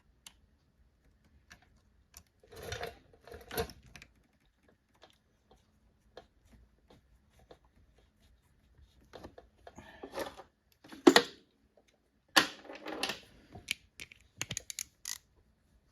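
Metal hand tools clinking and rattling in scattered, irregular bursts, with a sharp knock about two-thirds of the way through, as of someone rummaging through tools for a 10 mm socket or wrench.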